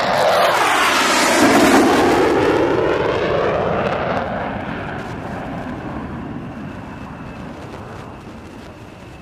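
Military jet engines at takeoff power: a loud rushing jet noise with a swooping, sweeping tone that peaks about two seconds in, then fades steadily.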